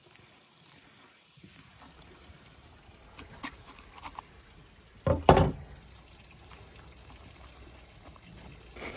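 Wet handling sounds of a raw whole lamb carcass being worked by hand and seasoned with a spoon: a few soft clicks, then one short, louder wet squelch about five seconds in.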